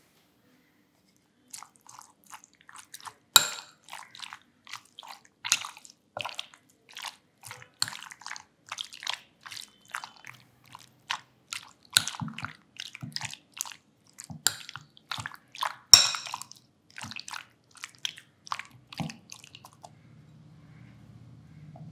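Metal spoon mixing raw prawns into thick green cafreal masala paste in a glass bowl: a quick run of short wet squelches, with a few sharp clinks of the spoon against the glass, the loudest about three seconds in and again about sixteen seconds in.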